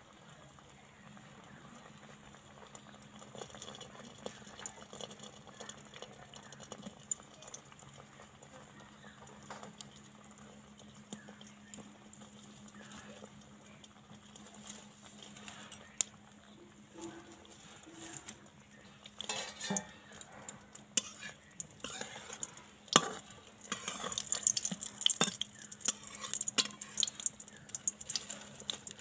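Biscuits frying in oil in a metal pan over low heat, with a faint sizzle. In the last ten seconds a metal spatula clinks and scrapes against the pan, and the sizzling hiss grows louder.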